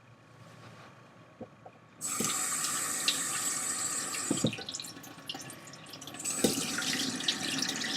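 Water making a steady rushing hiss that starts suddenly about two seconds in, drops away, and starts again near the end, with a few light knocks.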